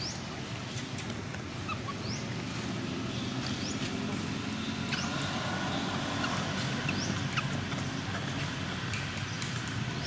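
Short, high, rising chirps or squeaks, about one a second, over a steady outdoor background hum.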